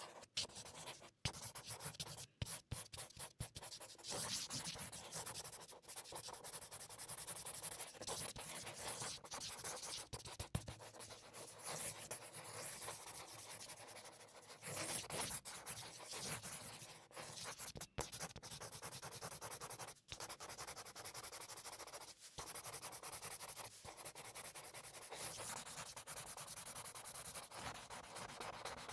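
Scratching and rubbing of drawing and painting tools (brush, marker, colored pencil) working on paper, choppy with frequent sudden breaks.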